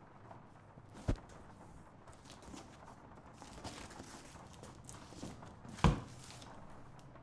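Cardboard box being handled, its flaps folded down: soft rustling and scraping, with a dull thump about a second in and a louder one near the end.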